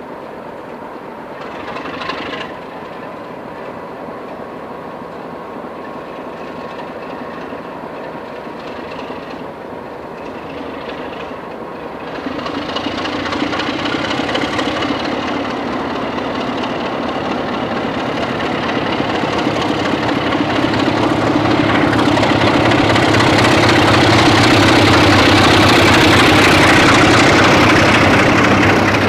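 Class 33 'Crompton' diesel locomotive's Sulzer eight-cylinder engine ticking over, then opening up about twelve seconds in as it pulls away with its train, growing steadily louder as it works past and easing slightly near the end. A brief loud burst comes about two seconds in.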